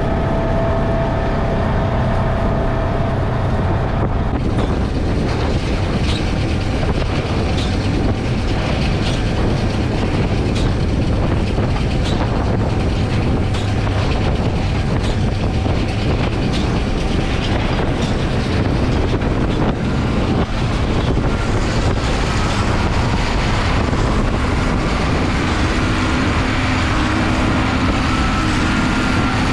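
Tractor and small square baler at work in the hay field: the engine runs steadily, with a regular knock about once a second, typical of the baler's plunger packing hay.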